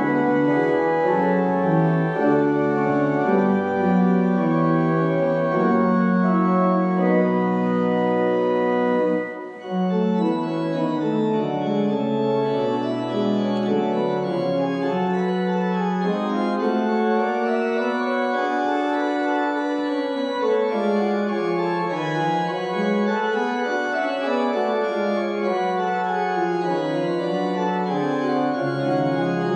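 Organ playing closing music for a church service: held chords moving slowly from one to the next, with a short break about nine and a half seconds in.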